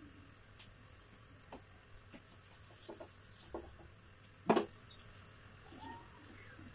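A steady high-pitched whine with a few faint clicks, and one sharper knock about four and a half seconds in.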